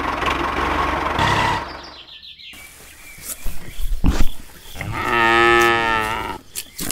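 A small engine runs for about the first two seconds, then stops. Scattered clicks and rustles follow, with one sharp knock just after four seconds. Then comes a cow's single long moo, held steady for about a second and a half.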